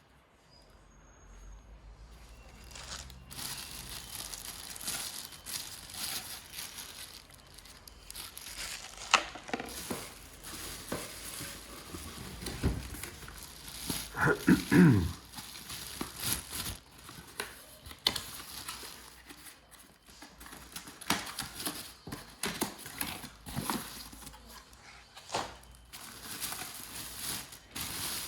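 Plastic packaging crinkling and rustling as vacuum cleaner accessories are unwrapped and handled, with scattered sharp clicks and knocks. The handling is loudest about fourteen to fifteen seconds in.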